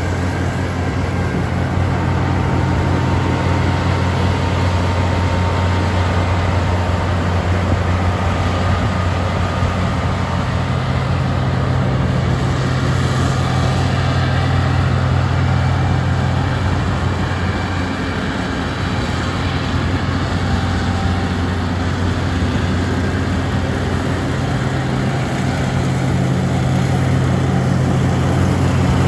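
New Holland TX64 combine harvester's diesel engine running steadily, its note shifting slightly a couple of times.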